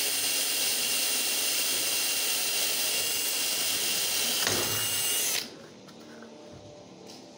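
Cordless drill with a brad point bit boring into hard ash wood under heavy hand pressure, running steadily for about five seconds and then stopping abruptly.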